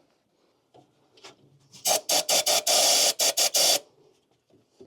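Starter cranking the 1953 Kaiser Manhattan's Continental 226 flathead six for about two seconds, beginning about two seconds in, in a choppy run of quick pulses, then cutting off.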